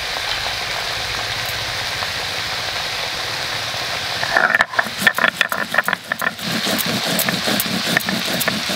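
A steady hiss for the first four seconds or so. Then hand grinding on a shil-nora begins: a stone muller is worked over cumin seeds, ginger and green chillies on a wet stone slab, first as a few irregular clicks and knocks, then as a quick, even rhythm of scraping strokes.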